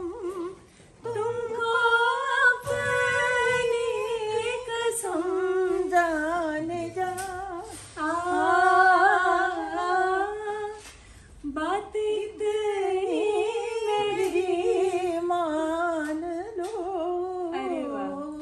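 Unaccompanied woman's voice singing a ghazal melody without words, in phrases of long held notes with wavering ornaments, broken by short pauses for breath.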